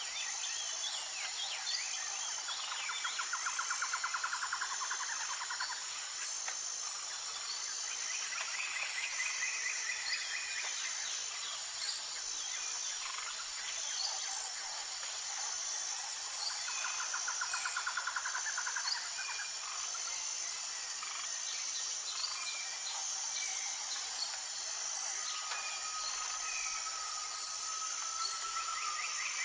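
Tropical jungle ambience: a steady high insect drone with a regularly pulsing chirp, over which several birds call, with a few rapid trills and many short chirps. Near the end a bird gives a long, slightly rising whistle.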